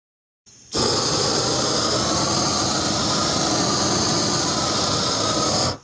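Propane torch burning steadily with a loud, even rush of flame as it is held against painted deck boards to burn off the old paint. The sound cuts in suddenly about half a second in and cuts off suddenly near the end.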